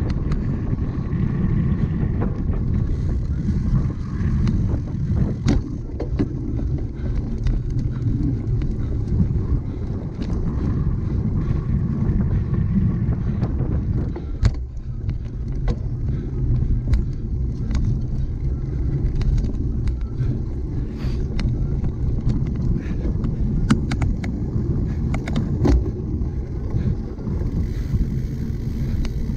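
Cyclocross bike being ridden hard over a rough course: a steady low rumble of tyres on the ground, with frequent sharp rattles and knocks from the bike over bumps.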